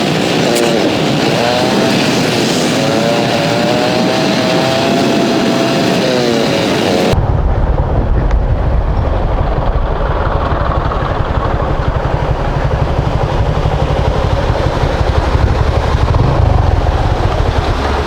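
Motorcycle engine running, its note rising and falling with the throttle. About seven seconds in, it gives way suddenly to a loud, low, steady rumble of wind noise on the microphone.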